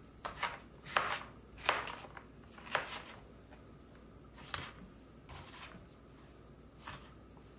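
Chef's knife slicing a bell pepper into strips on a plastic cutting board: irregular sharp knocks of the blade meeting the board, several close together in the first three seconds, then fewer and further apart.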